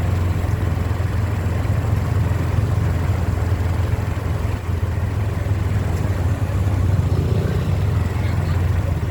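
Vehicle engine running steadily: an even low hum over a constant haze of road noise.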